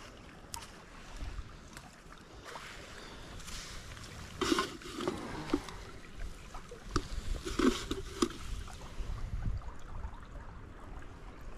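Creek water running steadily over shallows, with a few short, louder noises about halfway through and again a little later.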